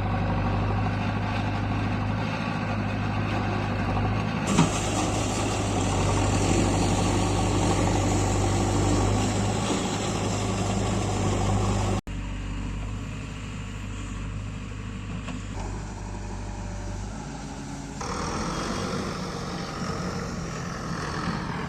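Diesel engine of a backhoe loader running steadily, with a single sharp clank about four and a half seconds in. Halfway through the sound cuts off abruptly and the engine carries on quieter.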